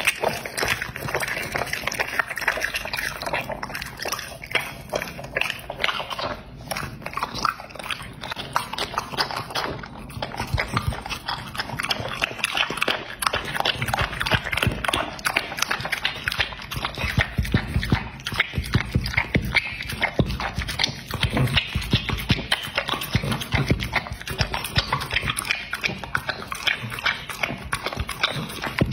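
A dog eating: first chewing raw meat held in a hand, then lapping raw egg off a stainless steel plate. The sound is a steady run of rapid wet smacks and licking clicks.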